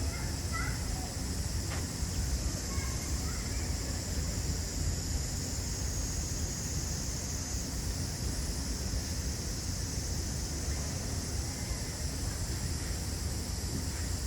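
Steady outdoor background noise: a low rumble with a steady high hiss over it, and no distinct call or event.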